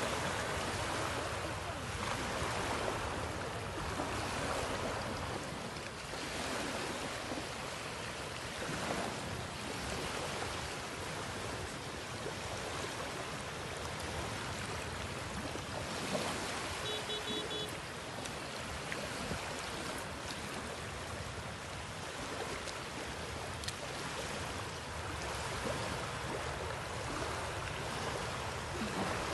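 Small sea waves lapping and washing up on a flat sandy beach: a steady hiss of surf that swells and eases gently.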